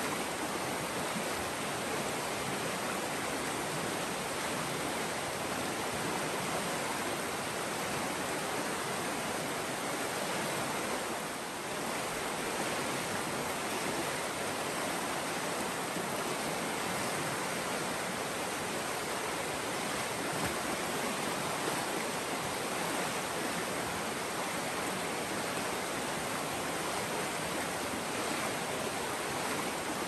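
Nantahala River water rushing steadily, a dense, even hiss of flowing water.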